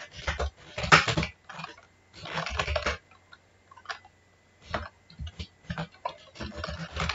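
Typing on a computer keyboard: short runs of keystrokes with pauses between them, including a longer pause around the middle.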